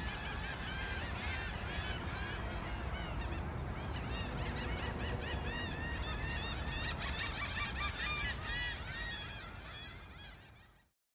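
A large flock of birds calling at once, many short overlapping calls over a low rumble, fading out near the end.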